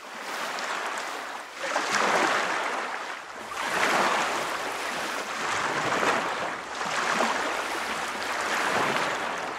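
Small waves washing and lapping: a noisy wash that swells and fades every couple of seconds.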